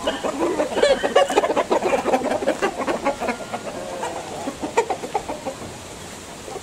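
Chickens clucking in many quick, short calls, busiest in the first few seconds and thinning out toward the end, with one sharp click just before the five-second mark.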